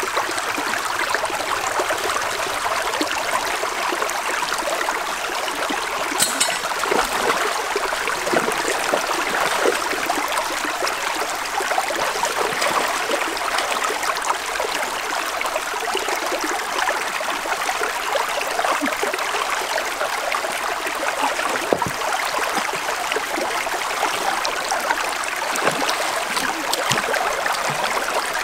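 Shallow stream rippling and trickling over rocks, a steady babble of running water, with a few brief small splashes or knocks now and then.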